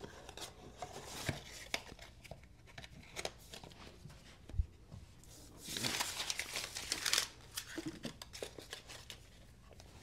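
Knife packaging being handled and opened: soft crinkling and tearing with scattered small clicks and taps, and a longer rustle about six to seven seconds in.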